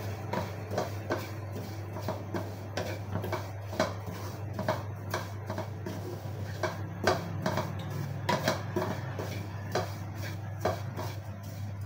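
Wooden spatula scraping and knocking against a metal kadai while stirring crushed dried coconut roasting in ghee. The knocks come irregularly, about once or twice a second, over a steady low hum.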